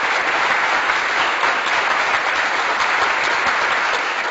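Crowd applause: many hands clapping in a dense, steady wash.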